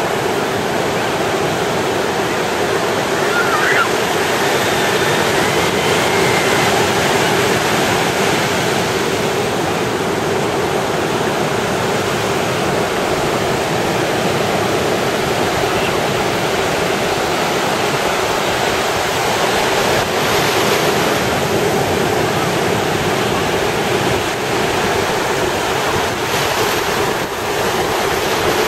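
Ocean surf washing ashore on a beach, a steady, continuous rush of breaking waves.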